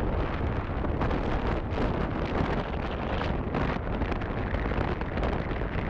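Steady low rumble and hiss of a car driving along a wet road: engine and tyre noise, with wind buffeting the microphone.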